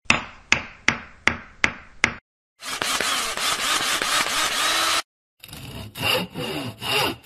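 Title-card sound effects of tool work: six sharp knocks about a third of a second apart, then about two and a half seconds of sawing, then after a brief gap a shorter, rougher scraping sound.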